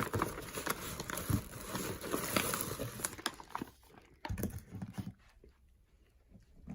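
Packaging being handled: a dense run of crinkling, rustling and small clicks, thinning to a few scattered taps and knocks after about three and a half seconds and fading quieter near the end.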